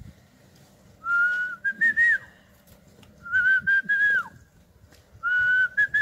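A man whistling to lure wild birds down to his outstretched palm: three short phrases, each a few steady notes stepping slightly upward and ending in a quick downward slide.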